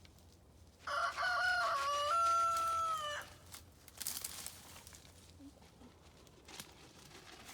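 A rooster crowing once: a single crow about two and a half seconds long, starting about a second in, wavering at first and then held on one long note.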